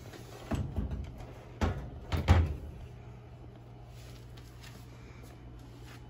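A handful of sharp knocks and clacks in the first two and a half seconds, the loudest a double knock a little after two seconds. Under them and after them, the steady low hum of a running Lasko Ultra Force Model 3700 box fan.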